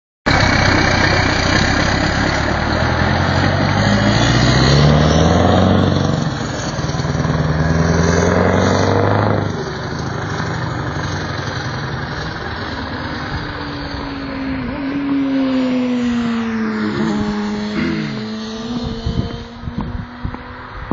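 V8 truck engine pulling away under load, its pitch climbing again and again through the gear changes, then dropping in level after about nine seconds as the truck moves off.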